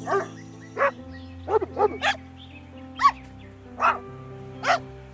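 A dog barking, about eight short barks at uneven intervals, with two or three coming in quick succession partway through. The barks sound over background music with long held notes.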